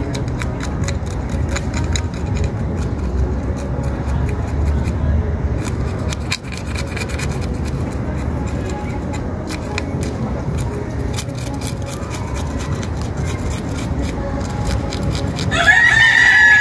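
Knife blade scraping scales off a small fish: a rapid run of short scratchy clicks. Near the end a rooster crows loudly, the loudest sound here.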